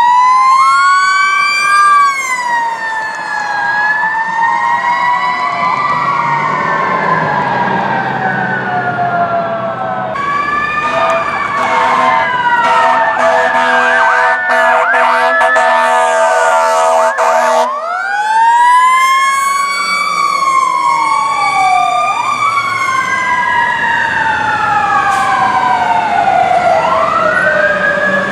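Fire truck electronic sirens wailing, several rising and falling tones overlapping. About ten seconds in a second apparatus takes over, and steady air-horn blasts sound over its siren for several seconds. The wail then climbs again and runs on in long rising and falling sweeps.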